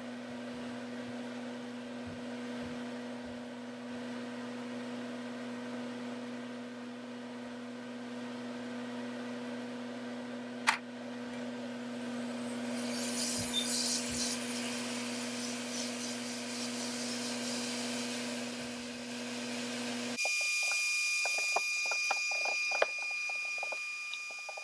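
Hot-air rework station in use on a laptop logic board to lift the BIOS chip: a steady electrical hum with one sharp click, then a rush of air around 13 seconds in. After a cut about 20 seconds in, the hot-air nozzle runs with a steady high whine over hiss and small crackles.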